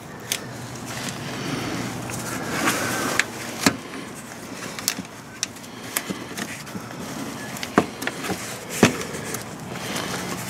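Scattered metal clicks, knocks and short scrapes of an old-style loop-type oil filter wrench being worked around a car's oil filter, with a couple of sharper knocks in the later half.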